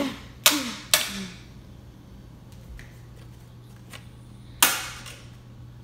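Plastic toy lightsaber whacking a padded office chair: three quick hits at the start, then a single louder whack about four and a half seconds in.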